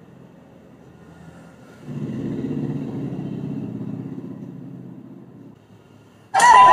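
Low rumble of a passing motor vehicle that swells about two seconds in and fades out over the next few seconds. Loud shouting voices and a beep cut in just before the end.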